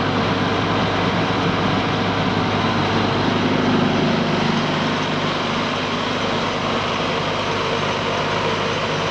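A 100 HP water-cooled diesel engine running steadily at an even speed.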